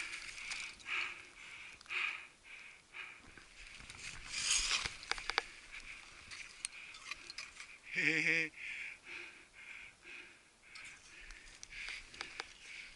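A climber moving on a snowy slope: faint rhythmic rustling and scraping, a short hiss about four and a half seconds in followed by a few sharp clicks, and a short wavering grunt from a man's voice about eight seconds in, the loudest sound.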